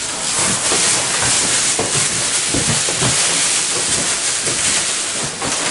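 Plastic packing bag around a portable washing machine crinkling and rustling continuously as it is gripped and pulled to lift the washer out of its cardboard box.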